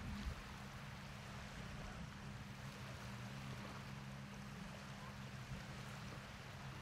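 Shoreline ambience: a steady wash of water with a low, steady hum beneath it.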